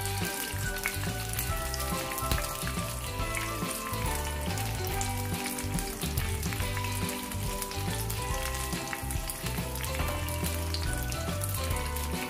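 Tempura-battered vegetables deep-frying in hot oil in a wok: a steady crackling sizzle.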